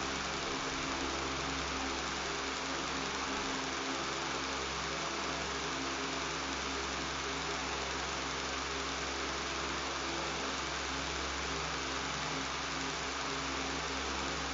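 Electric fan running steadily, an even airy hiss with a low buzzing hum underneath.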